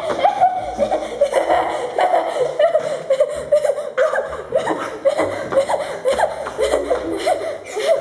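A child laughing in one long fit of short, repeated bursts.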